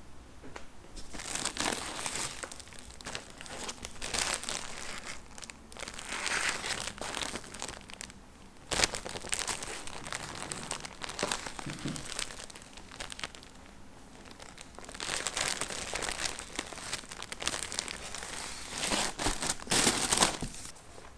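Rustling and crinkling as a bag is handled close up, in irregular bursts, with a sharp crackle about nine seconds in and louder rustling near the end.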